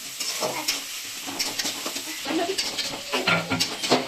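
A spoon stirring and scraping in a cooking pan with many short clinks, and food sizzling underneath.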